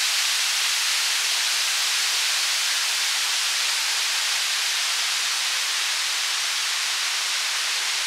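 Waterfall's falling water rushing in a steady, even hiss.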